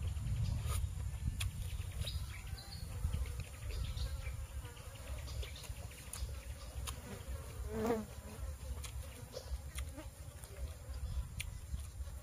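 Flies buzzing around, one passing close about eight seconds in with a buzz that rises and falls in pitch, over a steady low rumble and scattered small clicks.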